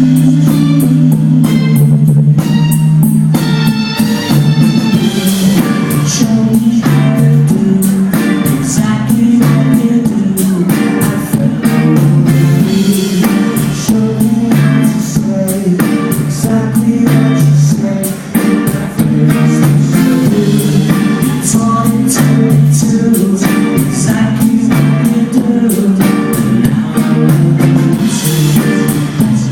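Live band playing a pop-rock song: guitars over a moving bass line, a drum kit with cymbals keeping a steady beat, and singing.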